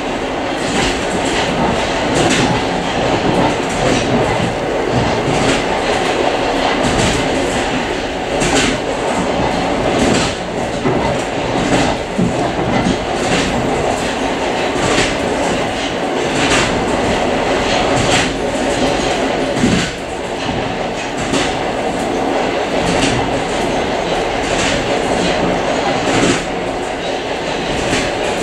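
Suburban train running along the line, heard from inside its vestibule: a steady loud rumble of wheels and carriage, with the wheels clicking over rail joints every second or two.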